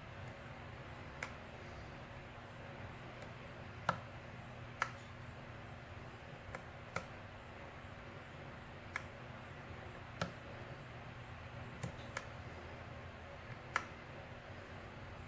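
Faint, sharp clicks at irregular intervals, about a dozen, from a lock pick working the wafers of a vintage Elgin wafer padlock under tension. Under them runs a low, steady hum.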